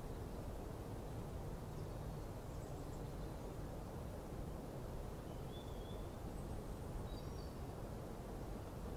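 Steady low background noise of open-air ambience, with a few faint, brief high bird chirps scattered through it.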